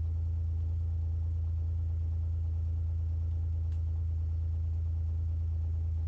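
Kawasaki Mule utility vehicle's engine idling, a low, even hum that holds perfectly steady.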